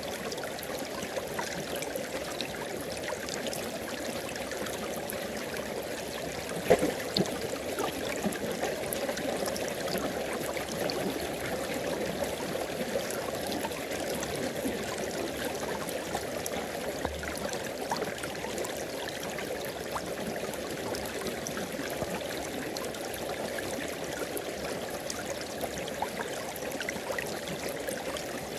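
River water flowing steadily over rocks, a continuous rush with small splashes and gurgles, one sharper splash about seven seconds in.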